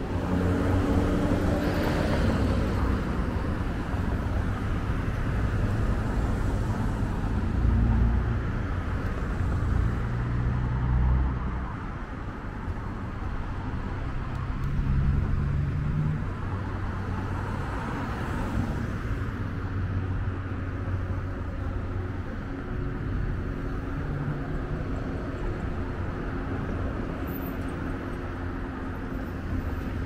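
Street traffic: a steady low rumble of car engines, with vehicles passing close by about two seconds in and again about eighteen seconds in.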